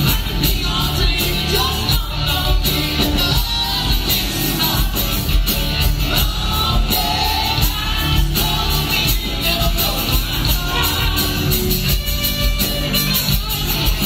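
Live country rock band playing a song in a large hall: drums, bass, electric and acoustic guitars, with a steady beat.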